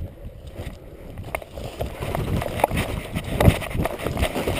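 Clothing rubbing and brushing against a chest-mounted action camera, with a low rumble and scattered knocks as the wearer moves.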